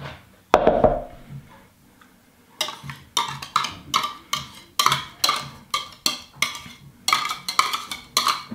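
A single knock about half a second in, then background music with a quick, even percussive beat, like a wood block or plucked strings, starting about two and a half seconds in.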